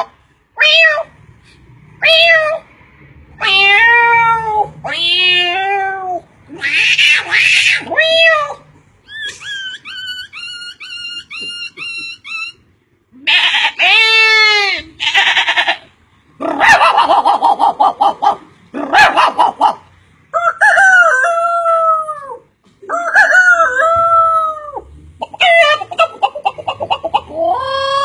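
A man imitating animal calls with his voice, one call after another, with crowing-, howling- and yelping-like calls whose pitch glides and wavers. In the middle comes a run of quick, even, bird-like chirps, about four a second.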